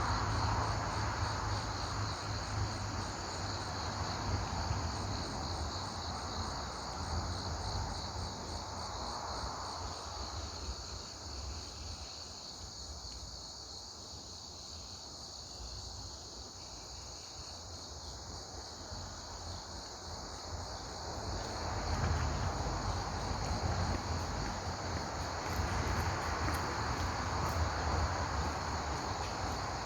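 A chorus of insects chirring steadily in high, finely pulsing bands, over a low rumble that grows louder about two-thirds of the way through.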